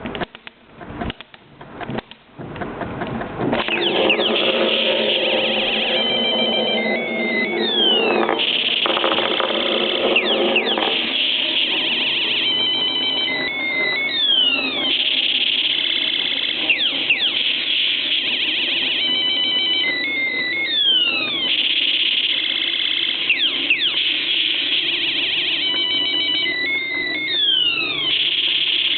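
Light-up toy spinning top's sound chip playing a looping electronic 'UFO attack' sound effect: a warbling ring with bursts of rapid beeps and falling zaps, the pattern repeating about every six and a half seconds. A few sharp clicks come before it, in the first three seconds.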